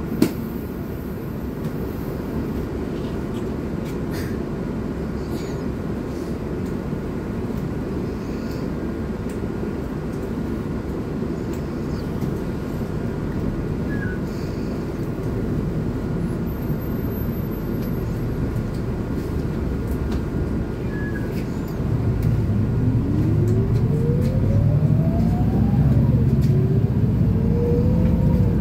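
Steady low drone inside a Volgabus 4298.G4 city bus on the move. About 22 seconds in it grows louder as the bus picks up speed, and a whine rises in pitch, drops once, then rises again.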